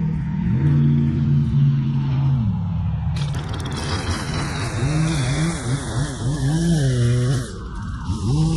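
Echo gas saw's two-stroke engine running, its pitch rising and falling repeatedly as the throttle is worked, with a hiss joining in a few seconds in.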